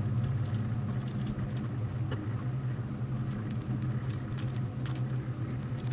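Scissors snipping through a cellulose sponge: faint, short cuts at irregular intervals, over a steady low hum.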